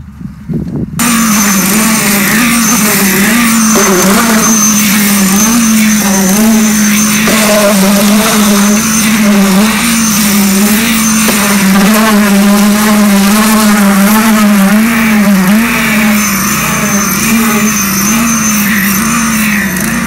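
Small petrol engine of a concrete poker vibrator catching about a second in and then running steadily, its pitch wavering a little, as the vibrator needle compacts fresh concrete.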